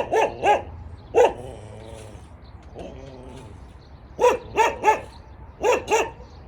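A dog barking in quick clusters of short, sharp barks: a burst of about four in the first second or so, then three more after a pause of nearly three seconds, and two more near the end.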